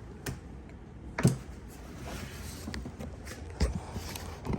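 A few scattered light knocks and clicks, the loudest about a second in, over a low steady hum.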